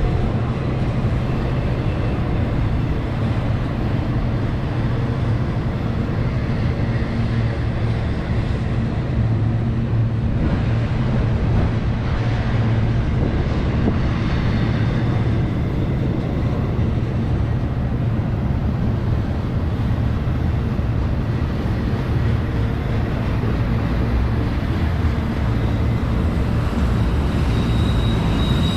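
Freight train running past with a steady, loud low rumble. Just before the end a thin, high-pitched wheel squeal begins.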